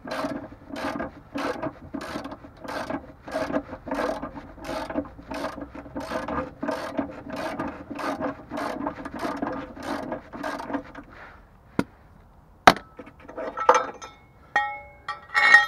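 Hand socket ratchet being swung back and forth in quick strokes, about three a second, its pawl rasping as a long bolt is wound out. The cranking stops about eleven seconds in, followed by two sharp knocks and a few ringing metallic clinks of tools or bolt.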